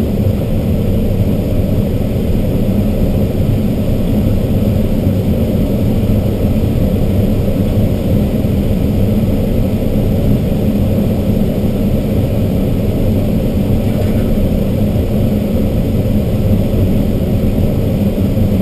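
Steady rush of airflow inside an ASK-21 glider's cockpit during an aerotow, with the low drone of the towing Piper's engine ahead.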